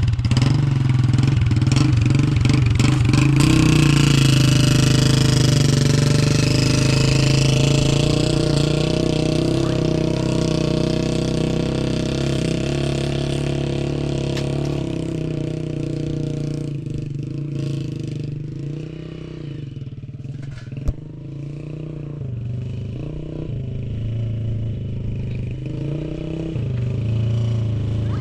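An engine running steadily just after being started, with a strong low hum; it eases off slightly after about 16 seconds and builds again near the end.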